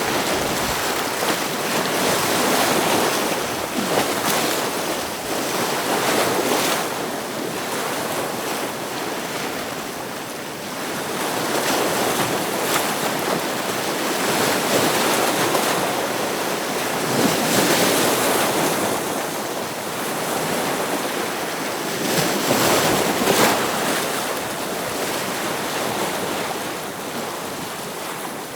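Ocean waves breaking against rocks: a continuous rush of surf that swells and ebbs every few seconds, with stronger surges now and then.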